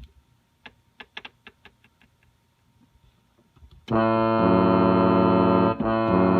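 Scattered clicks of a button being pressed repeatedly on an electronic keyboard. Then, about four seconds in, a loud, sustained multi-note chord from the keyboard, tuned to imitate a cruise ship's horn, briefly breaks off and sounds again.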